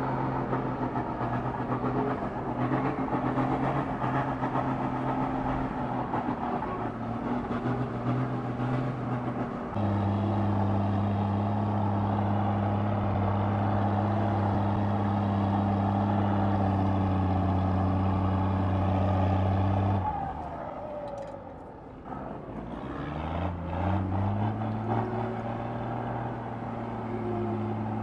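Engine of a large custom-built off-road vehicle running at steady revs, with an abrupt change to a lower, louder tone about ten seconds in. Later it falls away, then revs up, rising in pitch, and holds steady again.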